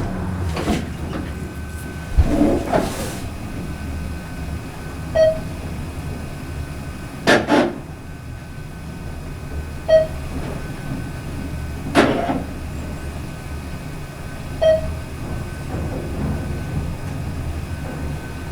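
ThyssenKrupp-modernized elevator car travelling with a steady low hum, a short beep sounding about every five seconds and a couple of sharp clicks.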